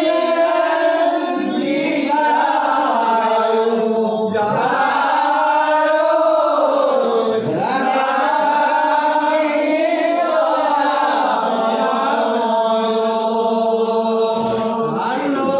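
Group of men singing Negera Naam, Assamese devotional chant, in unison, holding long notes that glide slowly up and down between pitches.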